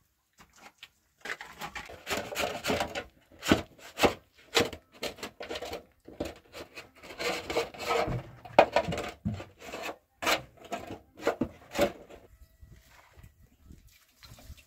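Irregular rubbing and scraping strokes with sharp knocks, coming in spurts with short pauses and stopping about twelve seconds in.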